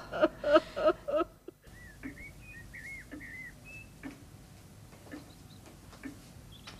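A woman sobbing for about a second. Then a songbird chirps in short warbling phrases, and a grandfather clock ticks faintly about once a second.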